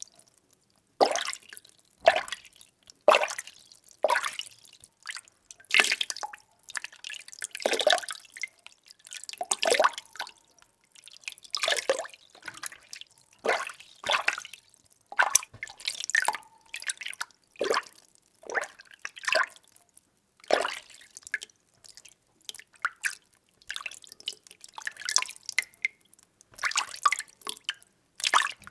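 Water being stirred, sloshing and splashing in repeated strokes about once a second with short quiet gaps between them.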